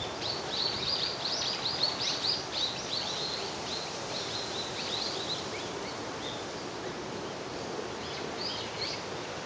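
A small songbird singing a rapid run of high chirping notes for about five seconds, with another short phrase near the end, over a steady rushing background noise.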